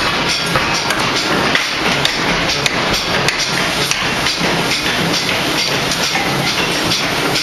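Ring rolling mill and forging machinery working red-hot steel: a loud, unbroken clatter with frequent sharp metallic knocks, several a second.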